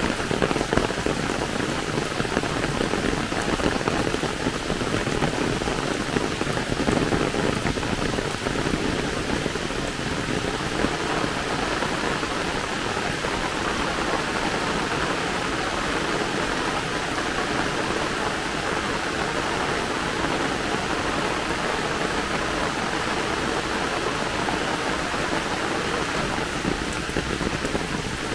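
Heavy downpour: a steady, dense patter of rain that does not let up.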